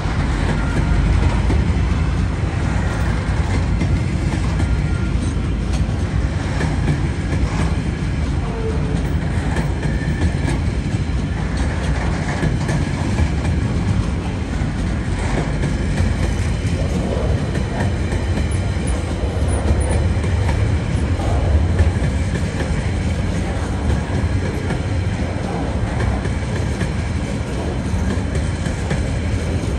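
Container wagons of a freight train rolling past close by: a steady, loud, low rumble of steel wheels on the rails, with irregular clicks from the wheels running over the track.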